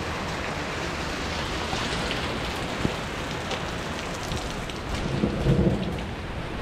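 Steady rain falling, with scattered sharp drop hits and a low rumble that swells about five seconds in.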